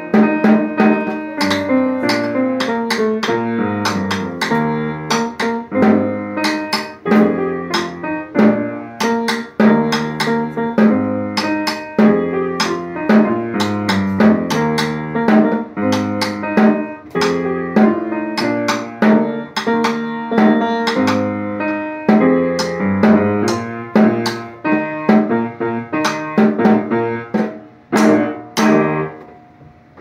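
Snare drum played in a steady rhythm along with a recorded accompaniment of pitched, piano-like music. The music dies away just before the end.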